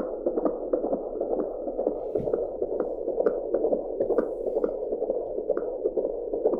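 Fetal heartbeat heard through an Angel Sounds home Doppler monitor: a fast, even, galloping whoosh-whoosh pulse, muffled, with a faint hiss underneath.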